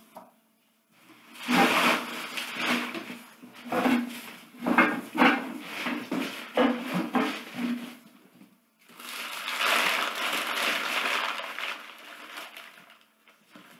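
A cardboard box and its packing material being rummaged through by hand: bursts of rustling and scraping with a few knocks, then a few seconds of continuous crinkling about nine seconds in.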